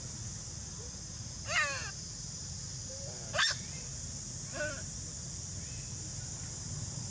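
Long-tailed macaque giving three short, descending calls a second or two apart, the second the loudest, over a steady high drone of insects.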